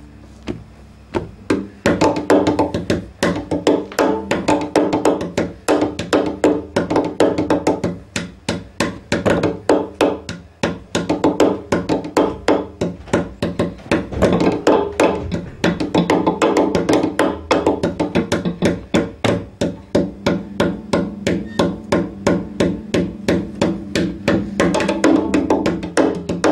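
Cello played percussively: rapid wooden knocks on its strings or body, about four a second, over a steady low ringing drone from the instrument. It starts softer and turns loud about two seconds in.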